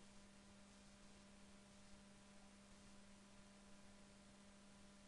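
Near silence: a faint steady hum with low hiss, recording background noise.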